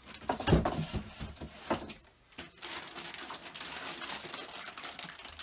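Thin plastic bag rustling and crinkling around a heavy PTZ dome camera as it is lifted and turned in the hands. There is a heavy thump about half a second in, a lighter knock just under two seconds in, and then a few seconds of continuous crackling.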